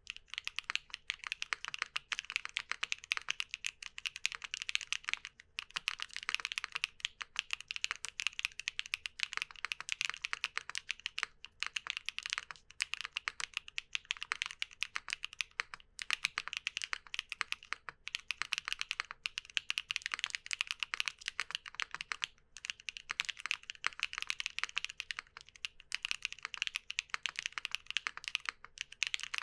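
Fast, continuous typing on a mechanical keyboard with HMX Caramel Pudding V2 lubed linear switches, their keystrokes running together into a dense clatter with a few brief pauses. The switches' waffle stem tips are meant to soften the bottom-out for a deep, creamy sound.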